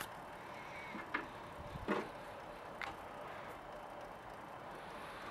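A few light knocks and clicks of PVC parts being handled, four in all and spaced about a second apart, over a steady low background hiss.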